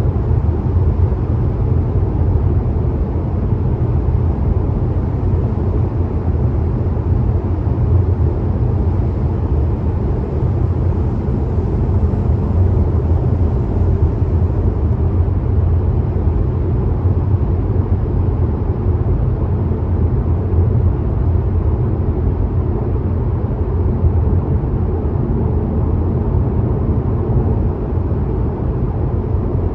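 Steady road noise of a car cruising on a motorway: an even, deep tyre and wind rumble with no changes.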